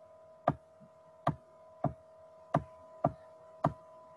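Six sharp clicks at uneven intervals, about one every half second to second, made while a circuit diagram is being drawn on a computer, over a steady high electrical hum.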